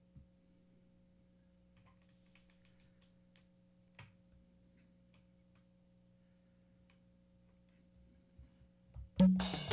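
Faint steady electrical hum with a few soft taps of a finger on a touchscreen. About nine seconds in, a drum machine starts playing: loud drum hits, with a kick drum ringing out at the end.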